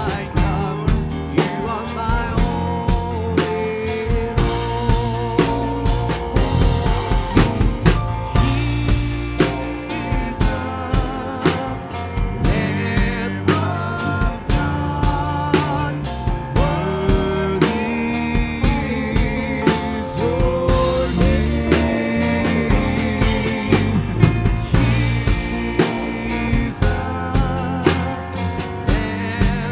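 Worship band music with a steady drum-kit beat of snare and bass drum under sustained melody and chords.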